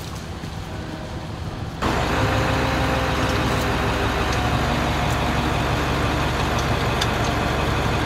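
Quieter outdoor background with a distant engine, then about two seconds in, a sudden jump to the steady, loud low running of a heavy tow truck's diesel engine close by.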